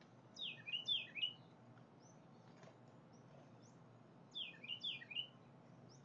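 A small songbird singing two short, identical phrases about four seconds apart, each a quick run of downward-slurred whistled notes, with a few faint high chips between.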